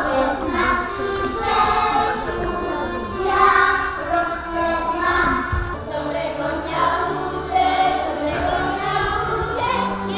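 A group of children singing a folk song together. About six seconds in, the singing changes to another song, with a steady low hum beneath it.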